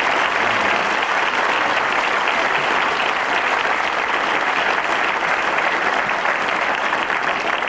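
Studio audience applauding steadily, a dense clatter of many hands clapping.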